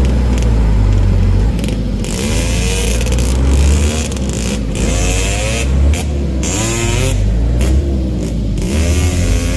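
Diesel dump truck engine revving hard under heavy load, its pitch rising and falling again and again as the truck, stuck in deep mud, strains to pull out.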